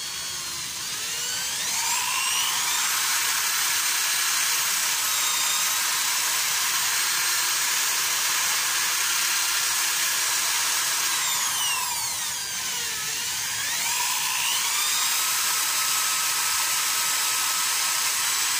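Electric drill spinning a small wooden base as a makeshift lathe while sandpaper is held against it: the motor's whine with the rasp of sanding. The motor's pitch sags about two-thirds of the way through and climbs back up.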